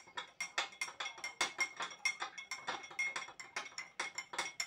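Metal spoon stirring salt into water in a drinking glass, clinking against the glass about four times a second, each clink with a short glassy ring.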